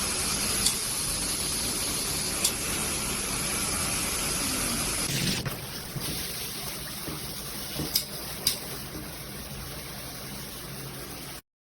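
Filtered shower head spraying water in a steady hiss. About five seconds in the spray gets quieter and changes in character, and a few sharp clicks sound over it before it cuts off abruptly near the end.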